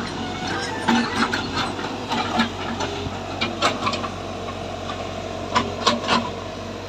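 Heavy construction machine's engine running steadily, with irregular sharp metallic clanks and knocks over it.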